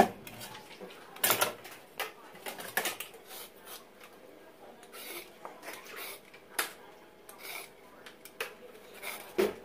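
Kitchen handling noises: scattered clicks and knocks of utensils and produce on a tiled counter, with a louder knock about a second in and another near the end. Short scrapes of a hand peeler on a raw carrot come in as the peeling starts.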